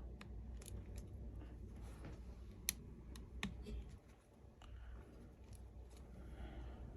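Faint, scattered clicks and taps of small parts and tools being handled, with two sharper clicks a little before the middle.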